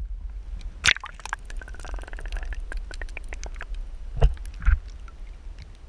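Water sloshing and gurgling around a camera held under the surface, muffled, with many scattered small clicks and a few louder knocks, about a second in and twice between four and five seconds in.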